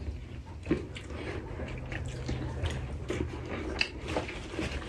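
A person eating close to the microphone: wet chewing and squishing with scattered small clicks, over a low steady hum.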